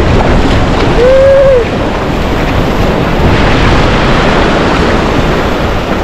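Ocean surf washing over the beach, with wind buffeting the microphone. About a second in, a person makes a short voiced sound.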